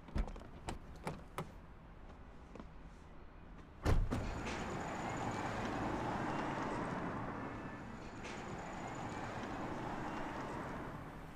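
A few light knocks, then a car door slamming shut about four seconds in, followed by the steady noise of a car running and moving off.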